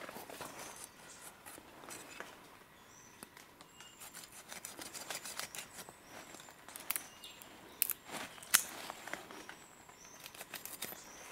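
Knife cutting and scraping through the hide of a hanging deer carcass as it is skinned: a run of sharp snicks and clicks, with two louder ones a little past the middle. Faint high bird chirps in the background.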